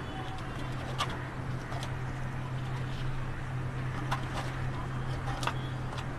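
A few light taps and clicks as fries are laid by hand into an aluminium foil container, over a steady low hum.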